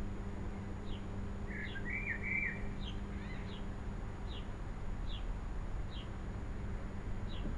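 Small songbird calling: a short high chirp repeated about once a second, with a brief warbling phrase about two seconds in, over a steady low hum.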